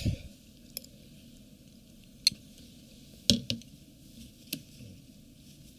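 Five or so short, sharp small clicks and soft knocks over a faint steady hiss: a spoon and dishes handled while eating ice cream.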